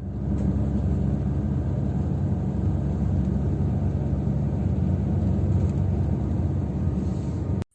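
A loud, steady low mechanical rumble with a hum in it, starting suddenly and cutting off abruptly near the end.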